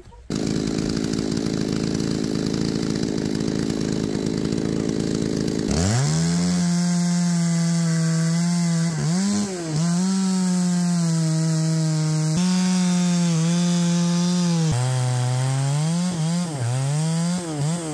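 A loud steady rushing noise, then about six seconds in a chainsaw engine revs up sharply and runs at high speed. Its pitch dips and recovers several times, as it does when the chain is loaded in the cut.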